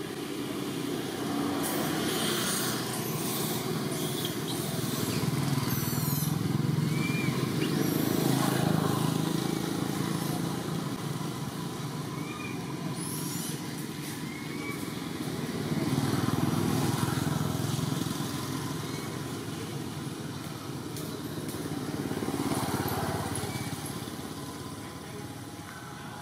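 Low engine rumble of passing motor vehicles, swelling and fading about three times, with a few faint high chirps.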